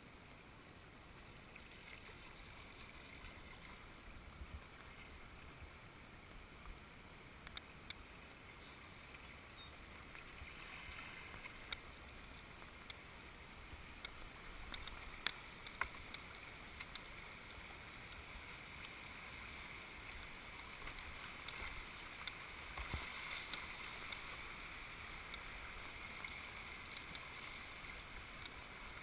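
Shallow whitewater rapids rushing and burbling around a canoe as it runs down them, getting a little louder in the second half, with scattered sharp clicks and knocks.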